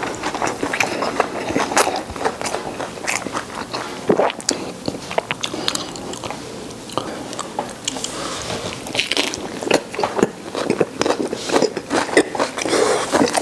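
Close-miked eating: a man chewing and biting into roast duck and crisp raw napa cabbage rolled in a thin pancake, with many short crunching clicks throughout.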